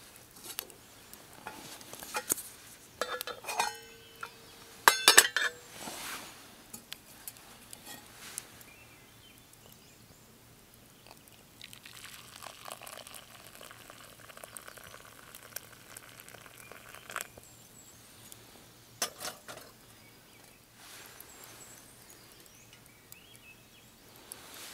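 Metal camp cookware and utensils clinking and clattering, with a brief ringing tone about three seconds in and the loudest clatter about five seconds in. A steady hiss runs for about five seconds in the middle.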